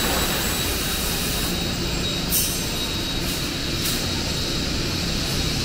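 Steady din of machinery in an aluminium extrusion factory, with a constant high whine running through it and a couple of faint ticks near the middle.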